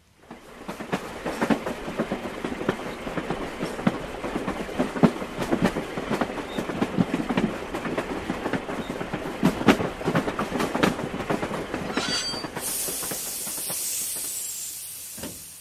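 Train sound effect: a train rolling along, its wheels clattering with many irregular clicks over the rails. About twelve seconds in the clatter gives way to a loud hiss that lasts about three seconds and then fades out.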